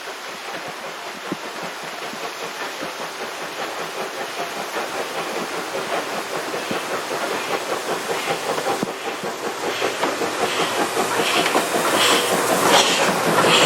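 Steam locomotive of the SL Banetsu Monogatari approaching, its rhythmic exhaust chuffing and steam hiss growing steadily louder.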